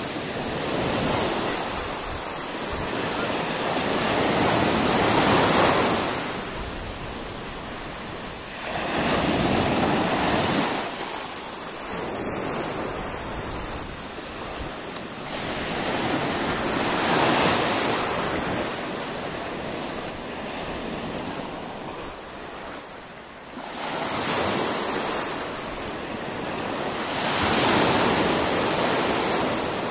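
Small sea waves breaking and washing up onto a sandy beach, the surf swelling and fading about every five to seven seconds. Wind buffets the microphone with a low rumble.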